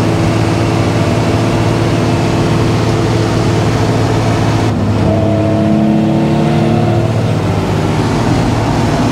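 Cab interior of a truck with a 12-valve Cummins diesel cruising down the road: loud steady engine and exhaust drone mixed with road and tyre noise. About two-thirds of the way through it cuts to another truck's cab, with a smoother engine hum and less hiss.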